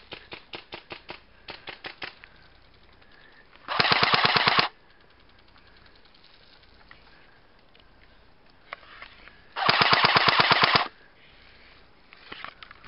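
Airsoft gun firing two rapid full-auto bursts, each about a second long and about six seconds apart, loud and close. A quieter run of single clicks comes in the first two seconds.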